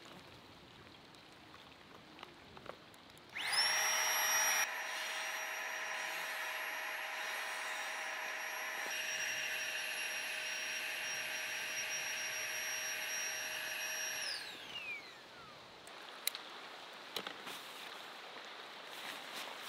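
Small battery-powered inflation pump blowing up a packraft: a steady high motor whine over a rush of air. It starts abruptly a few seconds in, is loudest for its first second, runs for about eleven seconds, then winds down with a falling whine.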